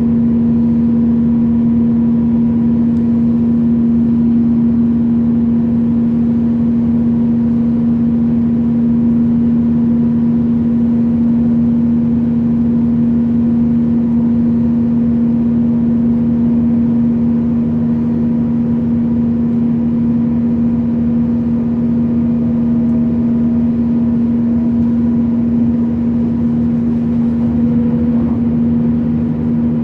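Passenger train running at a steady pace, heard from on board: a constant hum over an even rumble, with no change in speed.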